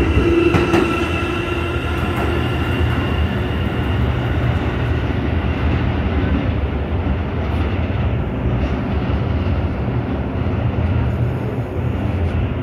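New York City subway train running on the elevated tracks: a steady rumble, with a whine in the first few seconds that fades away.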